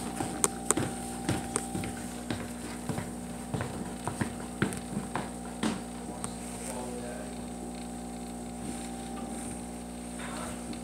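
Steady electrical hum from aquarium equipment, with a run of irregular sharp clicks and knocks over the first six seconds or so.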